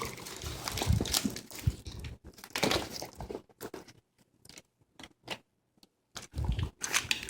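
Car wiring harness being handled: plastic connectors and wire loom rustling and clicking in short bursts, with a quiet stretch in the middle and a few dull knocks near the end.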